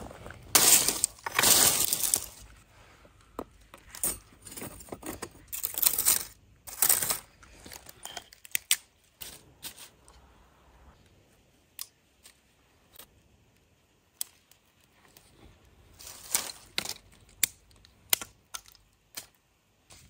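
Objects being handled: irregular clinks, knocks and crinkling or rustling noises. They come thick in the first seven seconds, thin out to scattered single clicks, then pick up again near the end.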